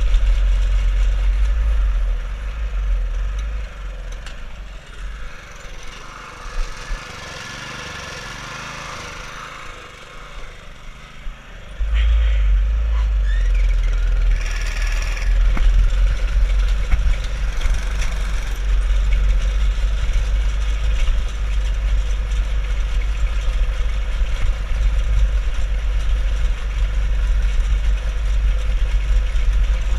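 Go-kart running along a dirt road, heard from a camera mounted on the kart, with a heavy low rumble. It goes quieter for several seconds, then comes back loud about twelve seconds in.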